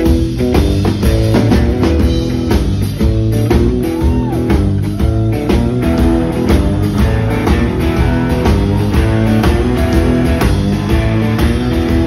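Rock band playing a boogie live: electric guitars over bass and a steady drum beat.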